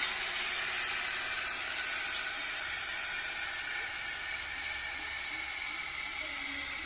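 Tractor engine running under load while pulling a disc harrow through dry stubble, a steady hissing noise that slowly fades as the tractor draws away.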